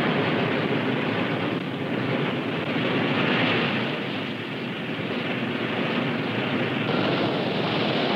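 Rocket sled's motors running down the test track: a loud, steady rushing roar with no change in pitch.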